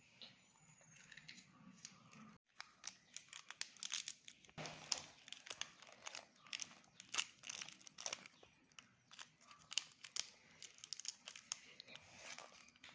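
Cough drop packaging being handled and opened: plastic wrappers crinkling and tearing. The sound starts as a faint rustle and becomes a dense run of sharp crackles from about two and a half seconds in.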